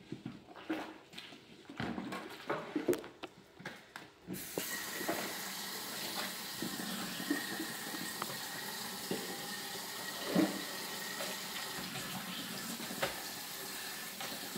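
A kitchen faucet running into a stainless steel sink, rinsing a plastic colander, with a steady rush of water that starts about four seconds in. Before it, knocks and splashes of the colander being washed in dishwater.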